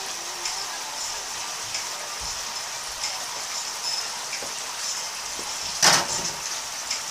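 Sauce sizzling and crackling in a frying pan of seared cod as it reduces, with one sharp knock about six seconds in.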